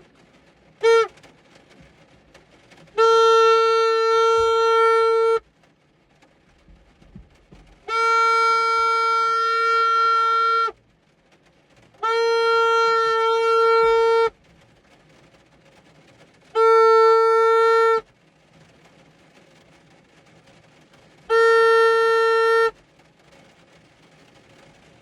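Hand horn honking: one short honk about a second in, then five long, steady single-pitch blasts, each one to nearly three seconds long, with pauses between them.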